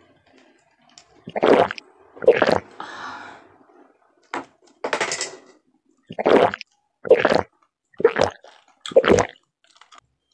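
A person gulping water from a glass, close to the microphone: about eight loud swallows in a row, roughly one a second, with a soft breath between the early ones.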